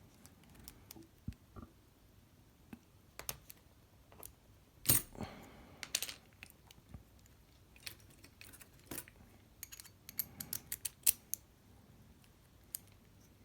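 Small metal clicks and taps from handling a Lince C4 lock and its parts, with a louder clack about five seconds in and a quick run of clicks later on.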